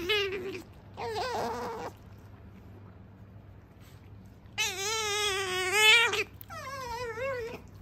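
Asian small-clawed otter making whining, wavering calls while begging for food: a falling call at the start, another about a second in, a pause, then a long, loud call near the five-second mark followed by a shorter one.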